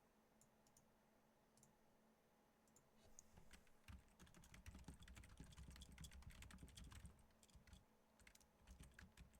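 Faint typing on a computer keyboard: a few scattered keystrokes, then a quick steady run of typing from about three seconds in to about seven, then a few more keystrokes near the end.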